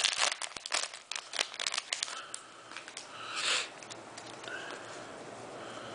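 Foil booster-pack wrapper crinkling as it is handled and pulled off the cards, a dense crackle for about the first two seconds. A short rustle follows about three and a half seconds in.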